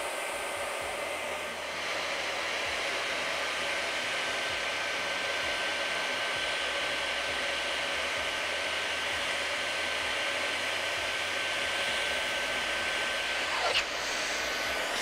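Hot-air plastic welding gun running, its blower giving a steady hiss with a faint high whine.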